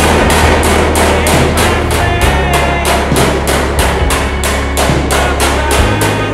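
Background music with a quick, steady beat over sustained bass notes that change twice.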